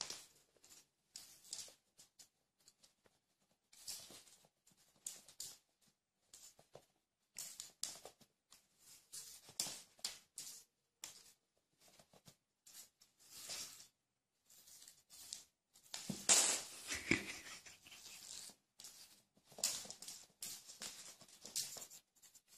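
Irregular spurts of scratchy scuffling and paper rustling with short quiet gaps in between: a cat's paws scrabbling on the floor as it chases a piece of paper stuck to its tail. The loudest flurry comes a little past the middle.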